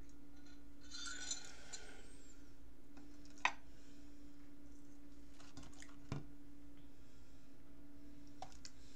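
An aspirin bottle being handled: a short burst of rattling about a second in, then a sharp click, a knock a few seconds later and light clicks near the end, over a steady low hum.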